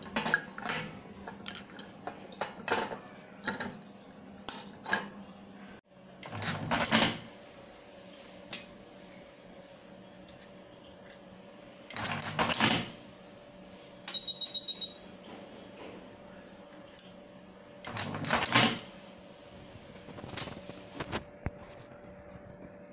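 Clicks and clatter of plastic charger shells handled on a metal machine top, then an automatic tape-wrapping machine running three wrapping cycles. Each cycle is a burst of mechanical noise about a second and a half long, some six seconds apart, over a steady machine hum, with a quick string of about eight beeps midway.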